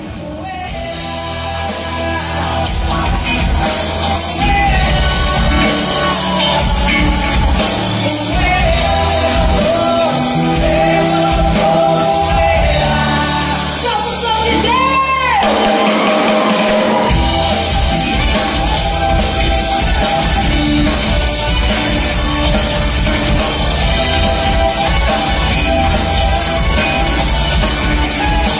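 A band playing a song with a singer and drums. About halfway through there is a falling swoop in pitch, and the bass drops out briefly before the full band comes back in.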